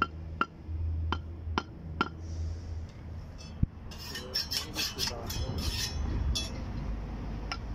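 A hammer tapping concrete kerb stones into line: five sharp, slightly ringing taps in the first two seconds and a few more near the end. Between them, about four seconds in, comes a burst of scraping strokes.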